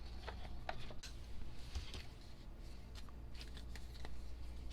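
Light, scattered clicks and rustles of a CD album's cardboard and paper being handled.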